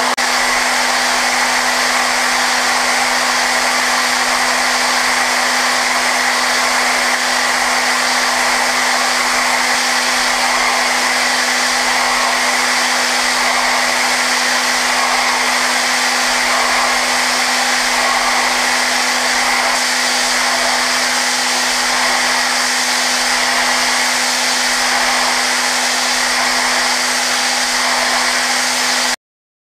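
Okuma GENOS M560-V vertical machining center hard-milling S7 tool steel at 56 Rc: the spindle runs with a steady hum and an overtone under a loud, constant hiss as a small end mill takes light zero-stock finishing passes. The sound stops abruptly near the end.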